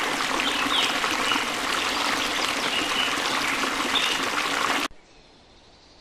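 Stream water flowing steadily, with short high bird chirps over it. About five seconds in it cuts off abruptly, leaving a much quieter faint hiss.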